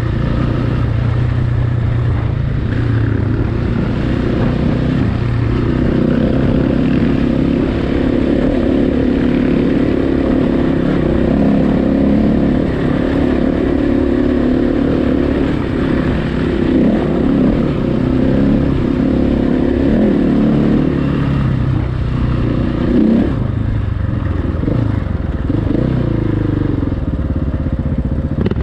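Enduro motorcycle engine running as it is ridden off-road, its revs rising and falling with the throttle.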